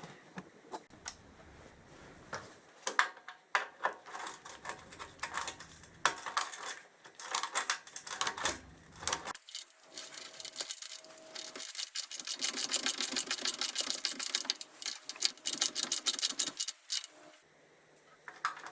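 Ratchet spanner clicking in runs as a bolt is tightened, with short pauses between the runs of rapid clicks.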